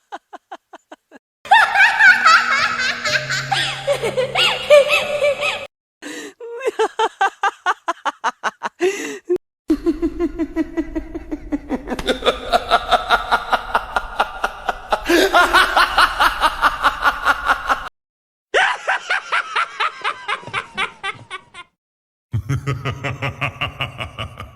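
A string of short sound-effect clips cut one after another, mostly people laughing in quick repeated bursts, some with music underneath, with brief silences between the clips.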